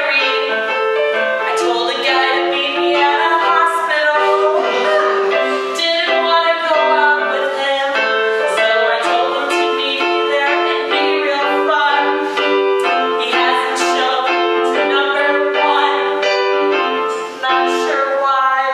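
Electronic keyboard playing a live accompaniment of repeated chords and notes in a steady rhythm.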